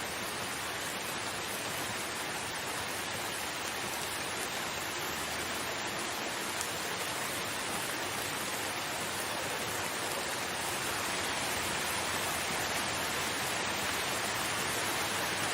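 Steady rain, an even hiss of falling water, growing slightly louder in the second half.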